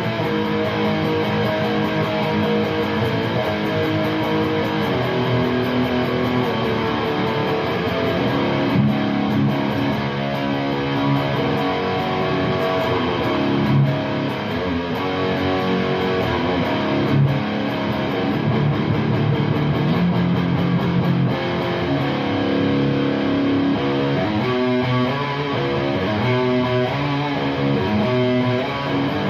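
Electric guitar played through an Orange Super Crush 100 amp's dirty channel: distorted chords and single notes, many left to ring, with quicker, choppier picking near the end.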